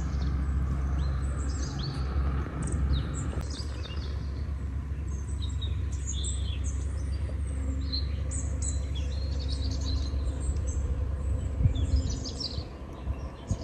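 Several birds chirping and calling over a steady low rumble of outdoor background noise.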